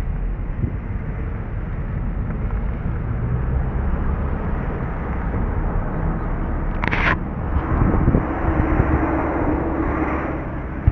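Steady engine and road noise heard from inside a moving car, with a brief hiss about seven seconds in.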